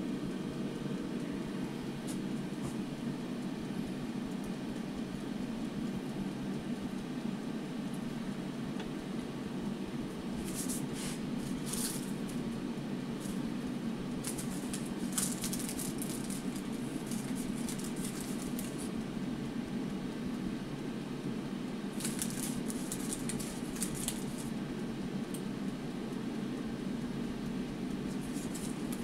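Paper cases crinkling in short bursts while falafel is crumbled into them by hand, over a steady low hum.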